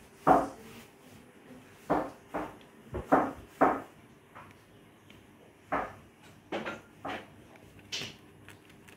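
Irregular light knocks and thumps, about a dozen short ones, as kittens play-fight and bump against a wooden cabinet.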